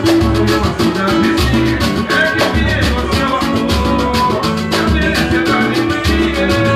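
Latin American band music with dense, fast, even percussion under melodic instruments, played without a clear lead voice.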